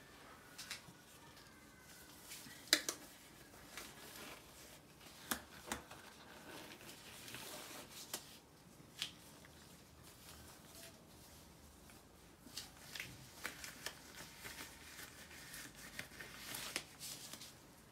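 Faint scattered clicks and light rustling, with one sharper tick about three seconds in and a cluster of clicks near the end. No gunshot.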